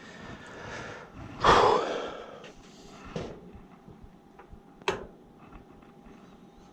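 A person's sharp, breathy exhale close to the microphone about a second and a half in, followed by a single sharp click about five seconds in.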